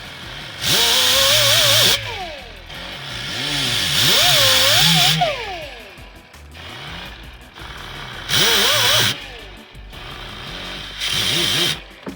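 Power tool run in four short bursts, its motor whine rising and falling in pitch within each burst.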